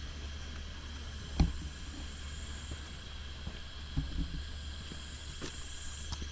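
Outdoor ambience of a steady hiss over a low hum, broken by a few short knocks, the sharpest about a second and a half in and a small cluster near the middle.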